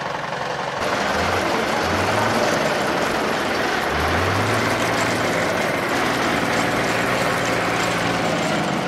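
Tractor diesel engine idling steadily, with a low hum that swells now and then.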